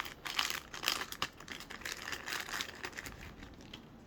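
Packaging being handled and unwrapped, crinkling and rustling in irregular bursts with small clicks, busiest in the first three seconds.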